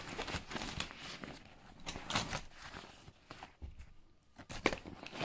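Rustling of a backpack's fabric and the clatter of the camera gear and cables inside it being handled: irregular soft clicks and knocks.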